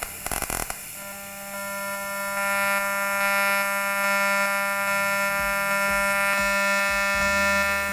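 TIG welding arc: a short crackle of clicks as the arc is struck with high-frequency start, then a steady high-pitched buzz from the arc pulsing at 200 times a second. The buzz grows louder about two seconds in as the current comes up.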